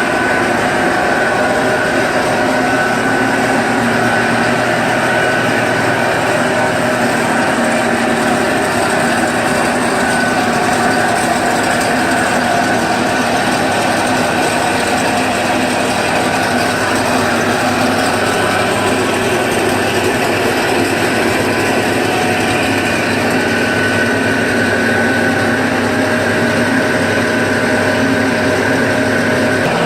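Bamboo sawdust grinding machine running: a loud, steady mechanical din with a few constant humming tones running through it.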